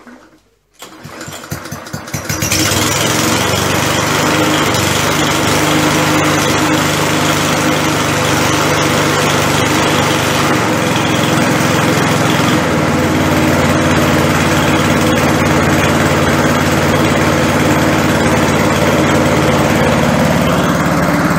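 Trimtech push mower's 140cc TORX XT140A single-cylinder four-stroke engine pull-started cold on full choke. It catches about a second in on the second pull and settles into steady running.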